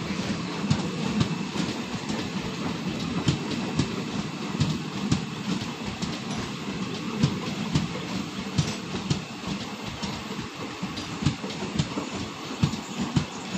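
Passenger train coach wheels clattering on the track, heard from an open coach door: a steady rumble broken by frequent, irregular sharp clicks.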